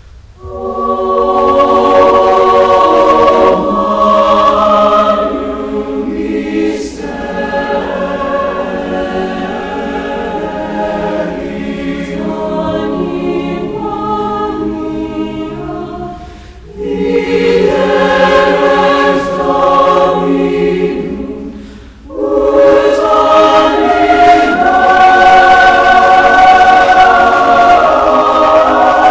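Choir singing in long held chords, with two short breaks between phrases, about 16 and 22 seconds in.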